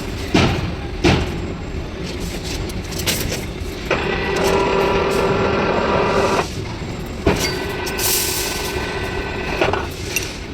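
Steel-bar bending machine forming rings: a steady mechanical hum with a few sharp metallic clanks, and a whining tone from about four to six and a half seconds in and again from about eight to ten seconds in.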